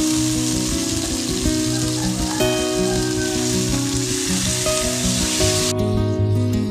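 Food sizzling as it fries in a pan, over background music; the sizzling cuts off suddenly near the end, leaving only the music.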